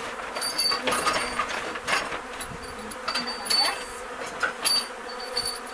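Honeybee colony buzzing steadily, with a dozen or so sharp clicks and knocks scattered through it.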